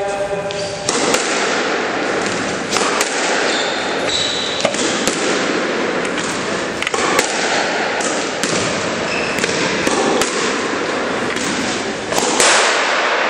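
Squash rally: the rubber ball cracking off rackets and the court walls in sharp knocks, roughly one a second at an uneven pace, with a few short squeaks of shoes on the court floor, over a steady noisy hall background.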